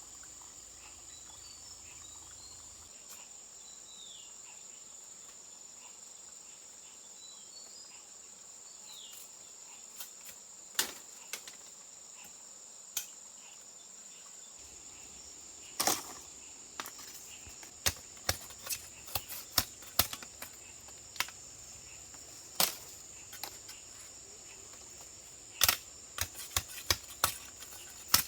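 Insects chirring in one steady high-pitched drone, with scattered sharp clicks and knocks that come more often, in quick runs, through the second half.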